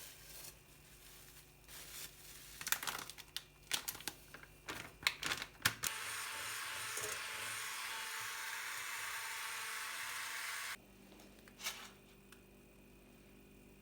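Kitchen handling sounds: a run of sharp clicks and knocks, then a steady hiss for about five seconds that cuts off suddenly.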